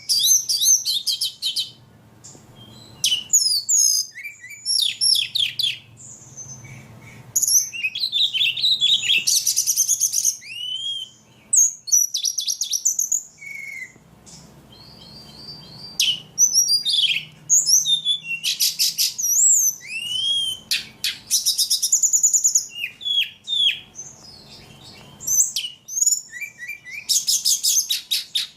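A ledekan songbird singing vigorously: phrase after phrase of fast high trills and whistled slurred notes, broken by short pauses.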